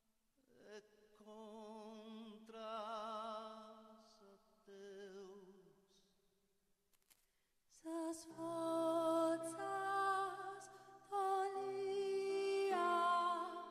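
A singing voice with a wide vibrato, unaccompanied, in short phrases with pauses between them; about eight seconds in, piano chords come in and a woman sings over them, louder.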